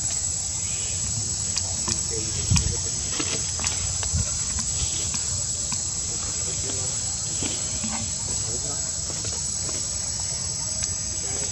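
Steady high-pitched drone of insects, with a few soft clicks and knocks, the loudest about two and a half seconds in.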